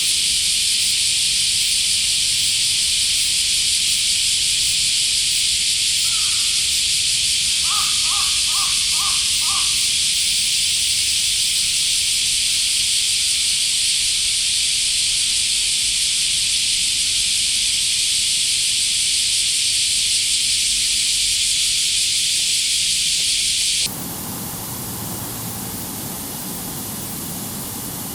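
Dense, steady chorus of summer cicadas, with a bird giving a quick run of about five short calls around 8 seconds in. About 24 seconds in, it cuts abruptly to a quieter, even rushing noise.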